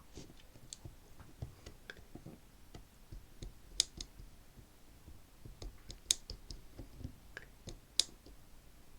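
Combination wheels of a Squire Snap Lock 210 bike lock being turned by hand against slight tension on the barrel, making small irregular clicks as the numbers pass. A few sharper clicks stand out, one of them the click of the wheel dropping into its gate at the correct number, which gives away the combination.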